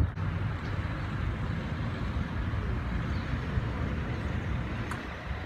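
Steady city traffic noise, an even low hum of road vehicles with no distinct events.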